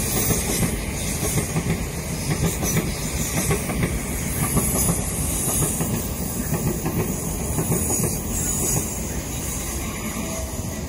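South Western Railway electric passenger train running along the tracks: a steady rumble with rapid wheel clicks over the rails and a hiss, easing slightly about nine seconds in.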